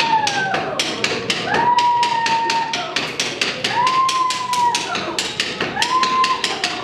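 Rhythmic percussion at about five or six sharp taps a second, with a held high note about a second long that comes back roughly every two seconds: music accompanying a masked dance.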